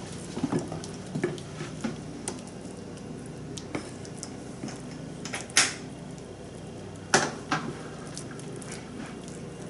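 A utensil clinking and scraping against a baking dish as mashed potatoes are spread and flattened into a layer, with scattered sharp knocks; the loudest come about five and a half and seven seconds in.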